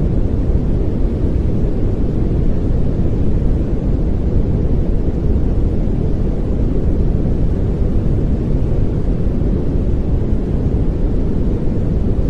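Steady synthetic pink noise: an even, unbroken rush, heaviest in the low end.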